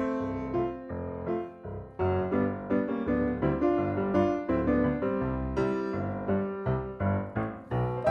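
Background music: a piano tune with notes struck in a steady rhythm over a bass line.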